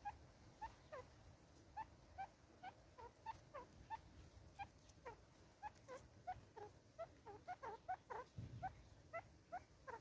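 Birds chirping: quiet, short notes that each drop in pitch, coming irregularly two or three a second and crowding together in the second half.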